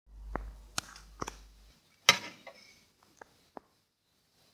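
Handling noise from vintage Philips oval TV speakers being picked up and turned: scattered clicks and knocks against their metal frames, the loudest about two seconds in. A low hum runs under the first second and a half and then stops.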